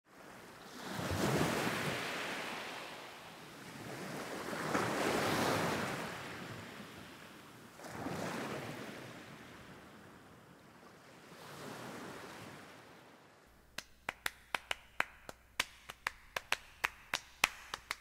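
Sea waves breaking and washing in: four slow swells of surf, each weaker than the last. Near the end a run of sharp ticks, about three a second, takes over.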